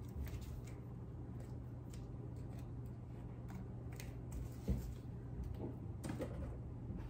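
Scattered light clicks and taps of fake plastic cockroaches being picked up and set down on a hard floor, with a slightly louder knock a little under five seconds in, over a steady low hum.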